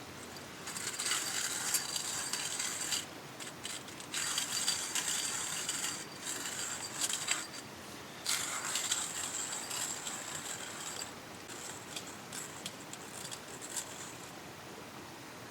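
Hand-cranked coffee grinder crushing beans, a crunchy ratcheting grind in several stretches of a few seconds with short pauses, thinning out near the end.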